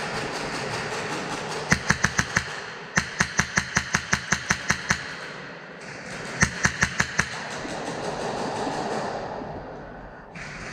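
Airsoft gun firing three quick strings of sharp shots, about six a second: a short string, a longer one of about a dozen, then another short one.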